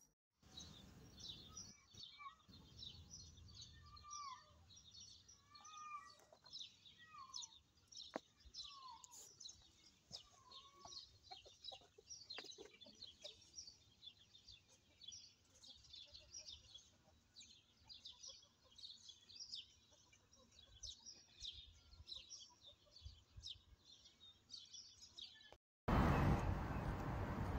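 Small birds chirping outdoors: a dense stream of quick, high chirps, with a few lower down-slurred calls between about four and eleven seconds in. Near the end it cuts suddenly to a louder steady noise.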